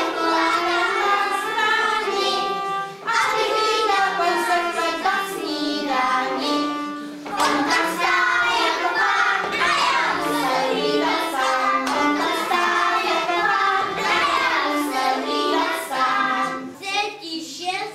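A group of young children singing a song together with musical accompaniment, in phrases with short breaks between them.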